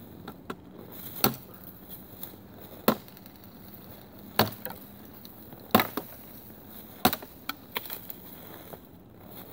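A 1060 carbon steel katana chopping into a thin tree trunk: about five sharp blade strikes into wood, roughly one every second and a half, with a few smaller cracks of wood between them.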